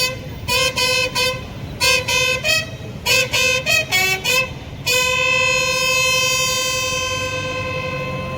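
A horn blown in groups of short blasts, mostly on one note with a few higher and lower notes mixed in. About five seconds in, it holds one long note that slowly fades.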